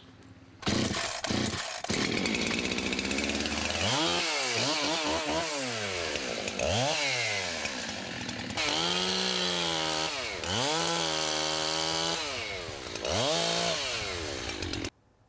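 Two-stroke chainsaw starting about a second in, then running with its engine pitch repeatedly dropping and climbing back up. It cuts off suddenly near the end.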